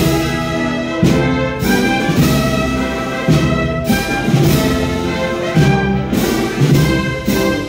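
Brass and woodwind band playing a Spanish processional march: sustained brass chords over drum strokes that fall about once a second.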